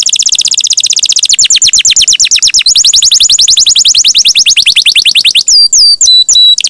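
Domestic canary singing a long, rapid roll of repeated high notes, shifting to a new roll pattern partway through, then breaking into a few slurred whistled notes near the end.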